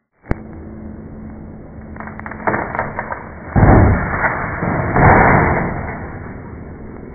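A tree limb breaking with a few sharp cracks, then crashing down through its leaves onto a parked truck in two loud rushes about a second and a half apart, fading off afterwards. Heard through a Ring security camera's microphone, which cuts off the high end.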